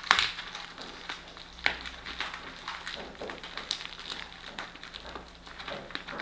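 Plastic stretch film and foam wrapping crinkling and crackling as hands grip and pull at a wrapped motorcycle helmet, in irregular rustles with a sharper crackle at the start and another about a second and a half in.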